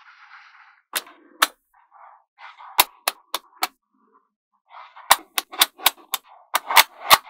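Small neodymium magnetic balls snapping together with sharp metallic clicks as slabs of them are pressed and fitted into place, with softer rolling and scraping of the balls in between. The clicks come singly and in small groups at first, then in a quick run near the end.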